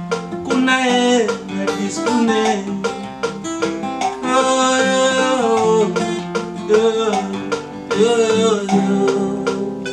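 Plucked acoustic guitar music with a woman singing in Lingala; near the end the notes are held and fade.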